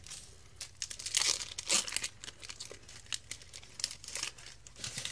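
Foil wrapper of a Yu-Gi-Oh! booster pack crinkling and tearing as it is handled and opened, in irregular crackles that are busiest one to two seconds in.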